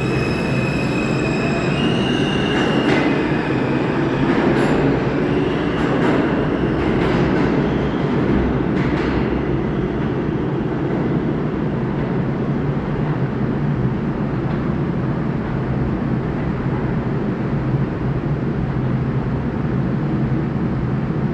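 R160A subway train running steadily with a continuous rumble of wheels and motors, and a few sharp clicks in the first several seconds.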